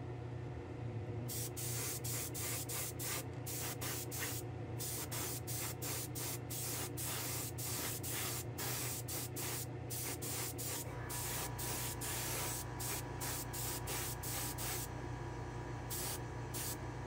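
Small gravity-feed spray gun spraying 2K urethane clear coat in many short, stop-start bursts of hiss, beginning about a second in, over a steady low hum.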